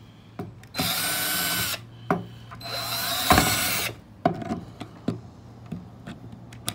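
Cordless drill boring into a wooden board with a thin bit, in two short runs of about a second each, the second a little longer, as one of a ring of small holes is drilled to open a passage for a wire. A few light knocks and taps follow.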